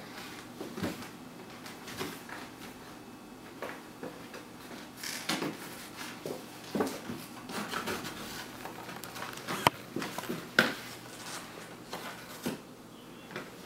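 Cardboard cereal box being pushed, gnawed and carried about by a small dog, scraping and crinkling in irregular scuffs and taps, with two sharper taps around ten seconds in.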